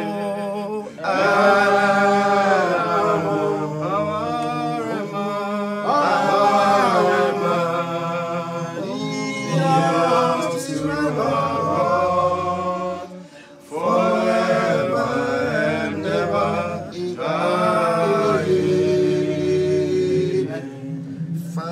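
A small group of people singing a worship song together, in long held phrases with a brief pause partway through.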